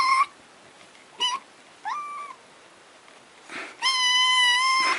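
Grey-and-white kitten mewing: a few short high-pitched mews, one rising in pitch, then one long, steady mew about four seconds in.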